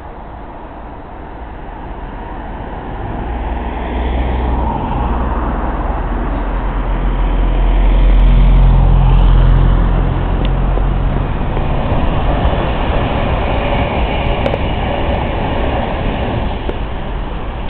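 Diesel locomotive passing beneath the bridge: its engine's low, steady tone grows louder as it approaches and is loudest about eight to ten seconds in, then wheel and rail noise of the passing train carries on.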